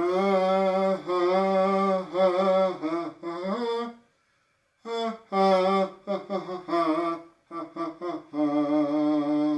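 A voice humming a tune without words: held notes that glide between pitches, in two phrases with a short break about four seconds in.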